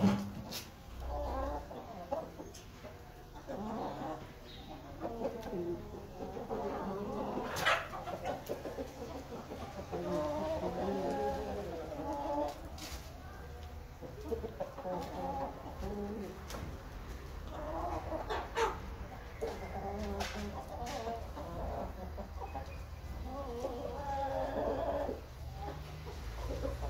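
A flock of Dark Brahma chickens clucking, short calls coming in clusters every few seconds, with occasional sharp clicks.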